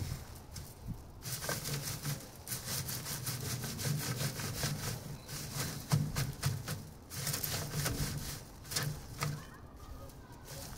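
Dried amaranth seed heads rubbed by hand back and forth over a wire-mesh screen in a wooden frame, a repeated rough scraping and rustling as the seeds are threshed out.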